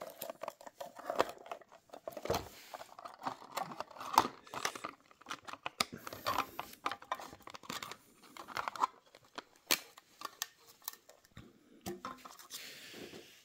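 Sticky tape being peeled off a plastic display case, then a clear plastic packaging insert handled. The sound is irregular crinkling and clicking of plastic.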